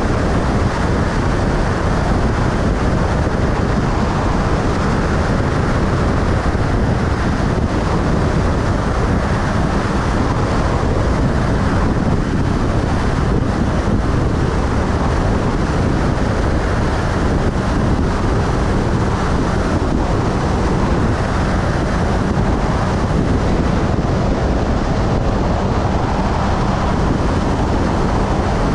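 Motorcycle cruising at a steady highway speed: a loud, even rush of wind on the microphone, with a steady engine hum and tyre noise underneath.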